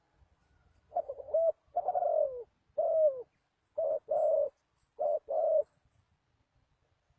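Spotted dove cooing: one song phrase of about seven coos, the early notes longer and falling in pitch, the last four short and in two quick pairs.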